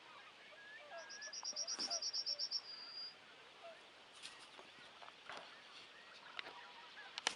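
A small songbird sings a fast run of high, evenly repeated notes that ends in a longer held note, about a second in. Distant geese call faintly throughout, and a sharp click comes near the end.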